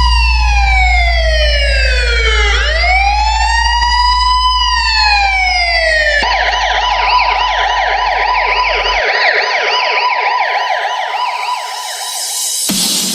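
Police-style siren sample in a DJ sound-check trance track: a slow wail falling and rising, then about six seconds in switching to a fast warbling yelp. A deep steady bass tone runs under it and stops about nine seconds in.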